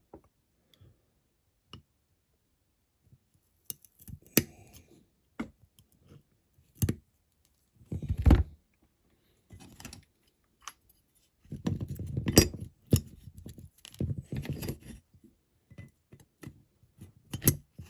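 Small hand cutters snipping a part down to size, in scattered sharp clicks, with short bursts of clattering handling about eight seconds in and again from about twelve seconds.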